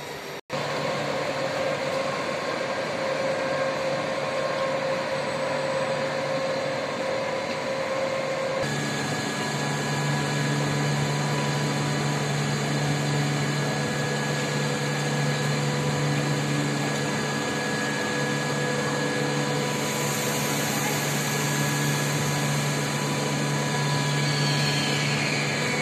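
Steady machinery hum with several steady tones. It grows louder and fuller about nine seconds in, a high hiss joins about twenty seconds in, and a faint falling whine comes near the end.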